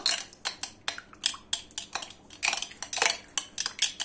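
A utensil clinking against a ceramic bowl while whisking a yogurt, oil and egg mixture, in quick, slightly irregular taps of about five a second.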